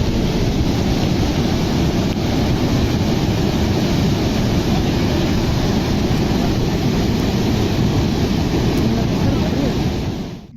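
Steady, loud rushing roar of a fast-moving mud flow, a small stream swollen into a torrent of mud and debris. It cuts off abruptly near the end.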